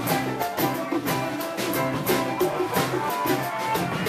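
Band music without singing: a drum kit keeping a steady beat under pitched instruments playing a melody.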